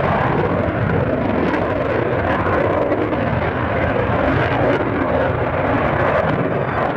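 Panavia Tornado jet's two RB199 turbofans running in afterburner as it turns overhead: a loud, steady jet roar.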